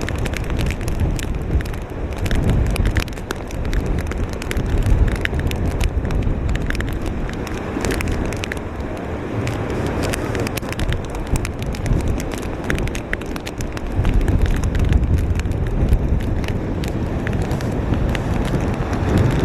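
Hurricane wind blowing hard across the microphone as a heavy, uneven low rumble, with wind-driven rain striking it in many sharp clicks.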